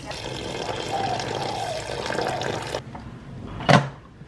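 Water poured from a kettle into a pressure cooker's inner pot over the chicken and rice, stopping about three seconds in. Then one sharp, loud click as the pressure cooker's lid is closed.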